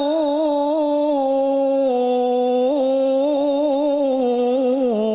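A man reciting the Quran in melodic tilawah style, holding one long, unbroken phrase with wavering ornaments. The phrase sinks lower in pitch near the end.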